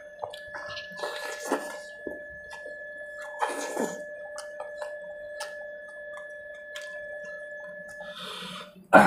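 Wet squelching and smacking of a hand breaking up whole fish in curry gravy and of mouthfuls being eaten, in a few short bursts with small clicks between. A steady high-pitched tone runs underneath.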